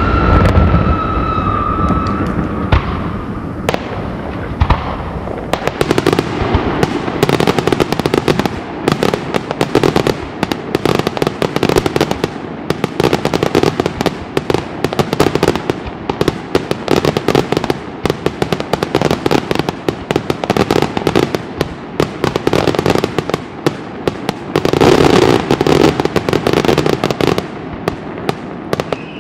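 Daytime aerial fireworks: shells bursting overhead in a rapid, near-continuous string of bangs and crackles, densest from about six seconds in and swelling near the end. A whistle falling in pitch sounds over the first two seconds.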